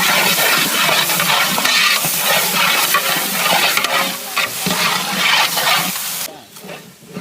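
Biryani masala frying in hot oil in a pot: freshly added ginger-garlic paste sizzling while a spoon stirs and scrapes against the pot. The sizzling falls away suddenly about six seconds in.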